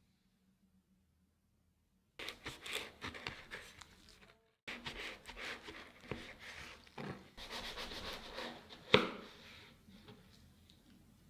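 Kitchen knife cutting through a baked Engadiner Nusstorte's crisp shortcrust pastry and caramel-walnut filling: dense crackling and crunching that starts after about two seconds of silence, with a brief pause halfway. A single sharp knock about nine seconds in, the blade meeting the plastic cutting board.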